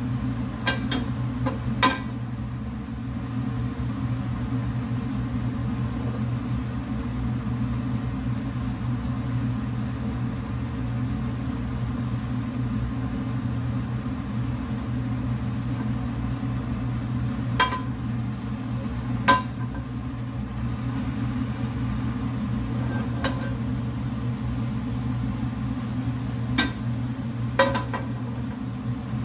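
A steady low mechanical hum, like a kitchen fan running, with a few scattered light knocks. Near the end the nonstick frying pan knocks twice on the gas stove's grate as it is lifted and tilted to spread the melting butter.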